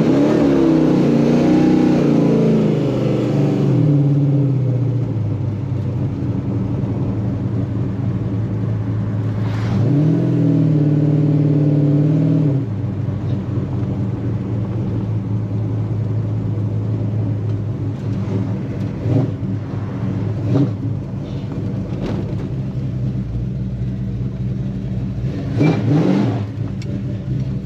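1972 Chevrolet Chevelle SS V8 running with its 700R4 automatic just put in drive. The engine revs up and eases back twice, about ten seconds apart, then settles to a steady idle, with a few short knocks later on.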